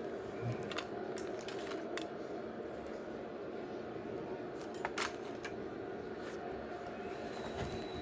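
Football stadium crowd noise from a TV match broadcast: a steady murmur of the crowd, with a few sharp claps or knocks about a second in and again about five seconds in.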